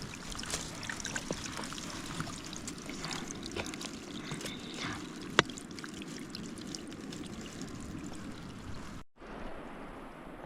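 River water running and trickling, with scattered small clicks and one sharp knock about halfway through. The sound cuts off abruptly near the end and resumes quieter.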